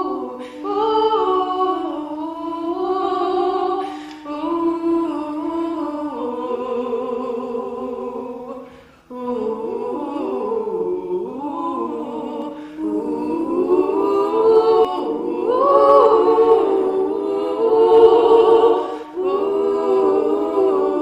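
A cappella vocal ensemble singing sustained chords in harmony, with no instruments, pausing briefly about nine seconds in before singing on.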